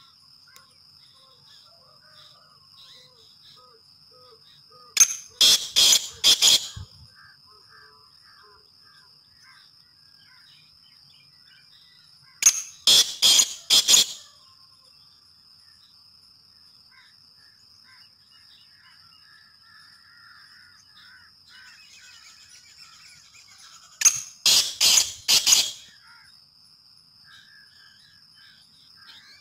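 Caged francolin (teetar) calling: three loud bouts of four or five shrill notes each, several seconds apart. A steady high-pitched tone and faint distant bird chatter lie underneath.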